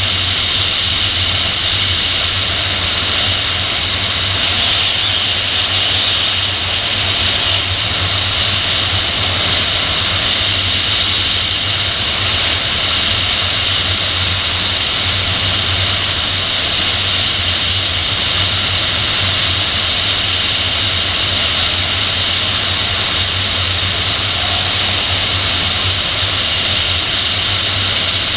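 Steady rush of airflow over a PIK-20 sailplane and its externally mounted camera in gliding flight: an even hiss over a low rumble, with no change in level.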